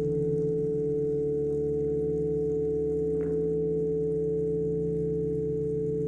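Ambient electronic drone from a modular synthesizer: a steady held tone over several lower sustained tones, with a soft, short ping about three seconds in.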